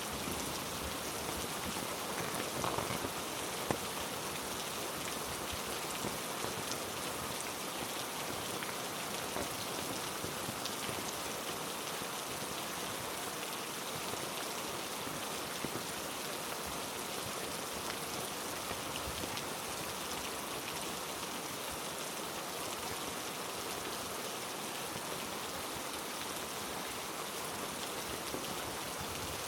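Heavy rain falling steadily, with a few sharper drop hits about three seconds in.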